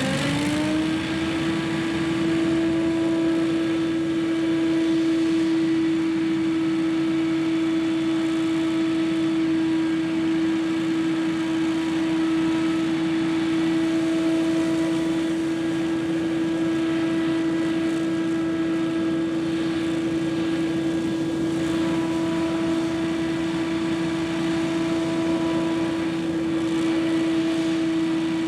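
Scag Windstorm stand-on leaf blower rising to full speed in about the first second, then running steadily at an even pitch.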